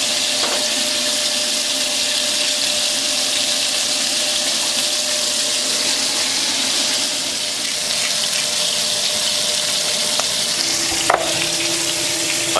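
Sliced onions sizzling steadily in a hot frying pan, in the olive oil left from browning short ribs. A brief knock near the end.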